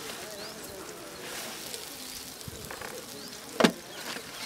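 Rounds of dough frying in oil on a flat aluminium plate over a fire, a steady sizzle, with birds calling in the background. One sharp knock sounds about three and a half seconds in.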